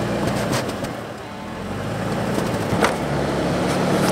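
Off-road vehicle engine running steadily at low revs, with a few sharp knocks from the rig working over the trail.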